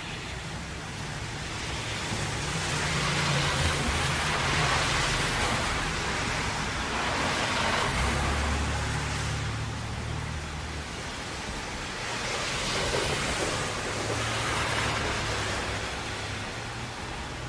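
Traffic on a rain-soaked road: a steady hiss of rain and tyre spray over a low engine rumble, swelling every few seconds as vehicles pass.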